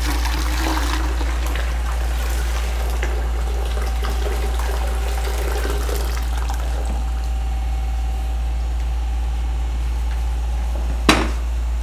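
Hot water poured from a kettle into a water dispenser's open top reservoir, splashing down into the tank for about six or seven seconds before it thins out. A single sharp knock comes near the end, over a steady low hum.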